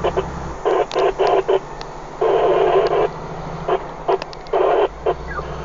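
Two-way radio in a log truck's cab: a voice coming over the speaker in short, clipped, tinny bursts. The truck's low engine hum drops away about half a second in and comes back near the end.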